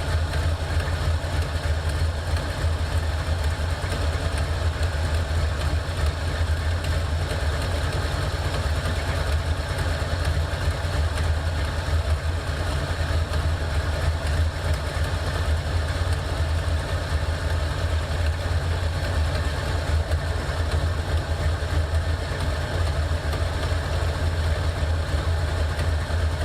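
A 1984 Ford Mustang's carbureted engine idles steadily, with an exhaust leak at the headers audible in the idle; the owner calls it leaking bad.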